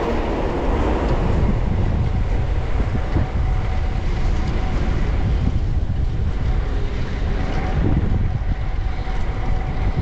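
Steady low rumble of wind on an action-camera microphone and passing traffic while riding a fixed-gear bicycle.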